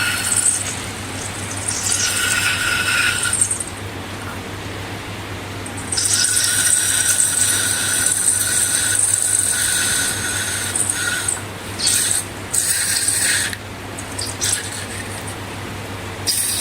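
Rubber balloon squeaking as it is handled and stretched: high, thin squeals in several stretches, the longest about five seconds, over a steady low hum.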